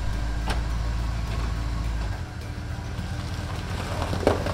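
1977 Chevrolet C10 pickup's engine idling with a steady low rumble. A door shuts about half a second in, the engine note changes about two seconds in, and a few sharp knocks come near the end as the truck starts to move.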